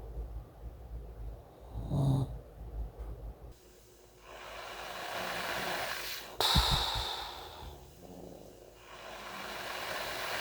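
A man asleep under nasal CPAP treatment for severe sleep apnea. A short snoring snort comes about two seconds in, then long, heavy breaths rush through the mask: one from about four to eight seconds with a click in the middle, another near the end. This loud breathing is what remains once the CPAP has largely stopped his snoring.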